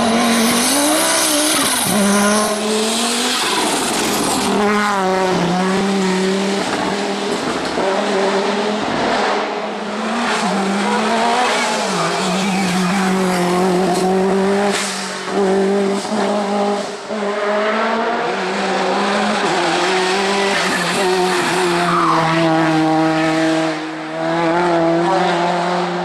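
Rally cars at full throttle on a hillclimb course: first an Audi Quattro rally car, then a Lancia Martini rally car. The engines rev hard, and their pitch keeps rising and then dropping with each gear change or lift through the corners.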